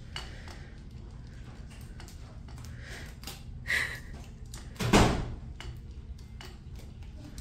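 A single loud thump about five seconds in, with a smaller knock about a second before it and faint scattered clicks over a steady low hum.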